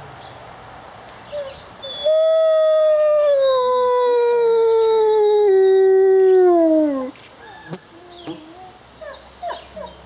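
A wolf howling: one long howl begins about two seconds in, starting high and sliding slowly downward in pitch for about five seconds, then falling away more steeply as it ends. A few faint short calls follow.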